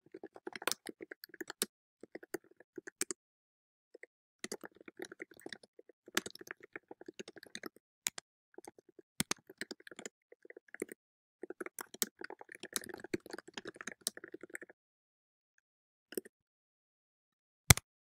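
Typing on a computer keyboard: quick runs of key clicks in bursts with short pauses, then a single louder click near the end.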